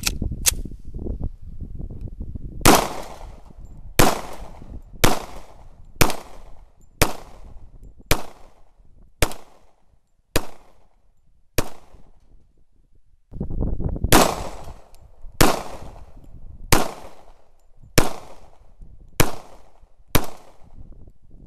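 A 9mm pistol fired about fifteen times in slow, steady succession, roughly one shot a second, with a pause of about two seconds halfway through.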